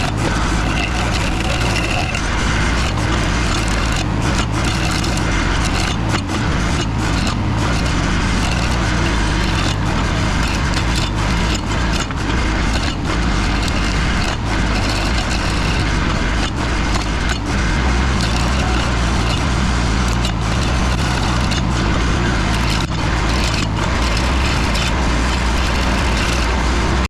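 Mini skid steer engine running under load with its stump grinder attachment cutting into a stump, a steady, loud din with a low rumble.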